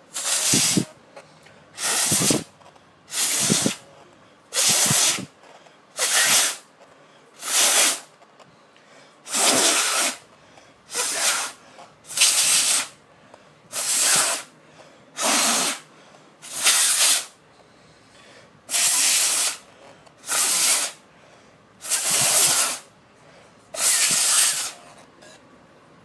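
About sixteen short, hissing blasts of air blown at an iPad, one every second or so, in an attempt to clear its speaker and get the sound working again.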